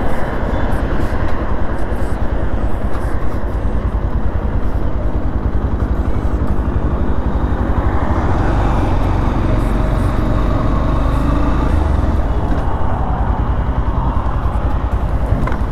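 Motorcycle engine running steadily at road speed with wind rushing over the helmet-mounted microphone.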